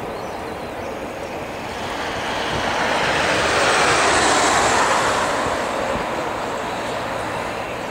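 Twin jet engines of an Airbus airliner at take-off power. The broad jet noise swells to its loudest about four seconds in, then fades as the aircraft climbs away.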